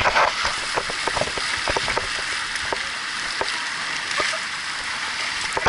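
Water rushing with a steady hiss as an inner tube slides through a water-slide bowl. Many short splashes run through it.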